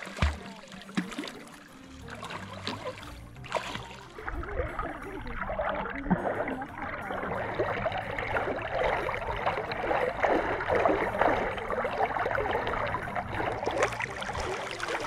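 Water sloshing and gurgling close to the microphone, with a low thump near the start. It swells into a steady, uneven rush about four seconds in.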